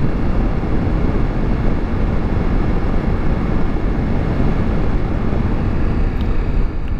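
Steady wind rush over the microphone of a Ducati Multistrada V4 S motorcycle cruising at about 95 km/h, heaviest in the low end. The noise eases slightly near the end as the bike slows for town riding.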